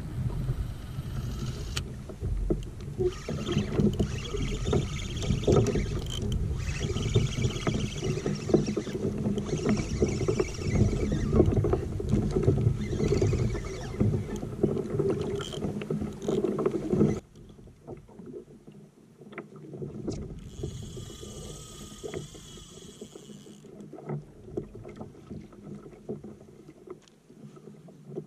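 Water lapping and splashing against a plastic fishing kayak's hull on open ocean. It is loud and choppy for about the first seventeen seconds, then drops suddenly to a much quieter wash.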